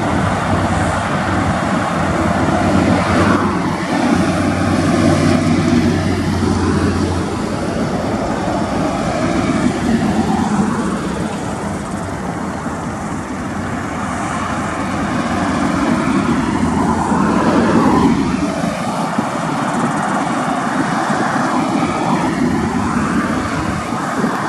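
Diesel-electric freight locomotive running as it approaches at walking pace, its steady engine drone mixed with road traffic passing close by. A road vehicle passes loudest about three-quarters of the way through.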